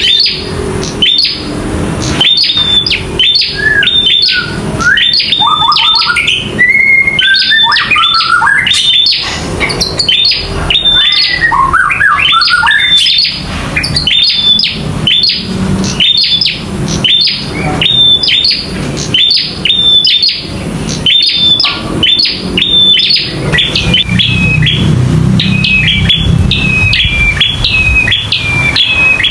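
Prinia (prenjak) singing its aggressive 'fighting' call: a fast, loud string of sharp repeated chirps, several a second. For the first dozen seconds a lower, rising twittering call runs under it, and near the end the notes come faster.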